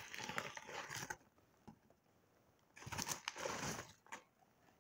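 Packaging rustling and small cardboard boxes being handled and set down, in two stretches of rustling with a few light knocks.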